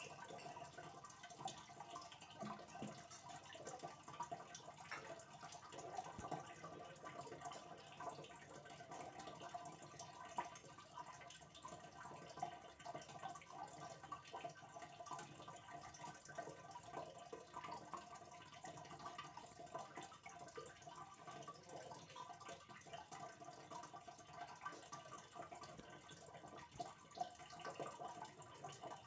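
Faint, steady trickling and dripping of aquarium water, with many small drips throughout.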